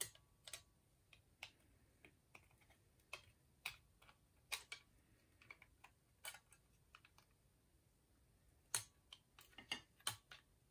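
Faint, irregular clicks and taps of small plastic parts being handled and pressed together, with a quick run of clicks near the end: a motor mover remote's circuit board and button pad being fitted back into its plastic case.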